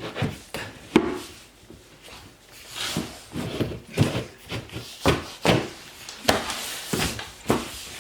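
Irregular knocks and scraping as a kitchen plinth board is pushed and fitted into place under a dishwasher, the sharpest knock about a second in.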